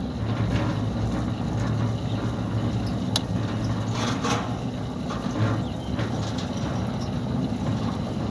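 Centurion D5 Evo sliding gate motor running, driving the steel sliding gate along its rack with a steady low hum, with scattered clicks and knocks from the gear and gate hardware.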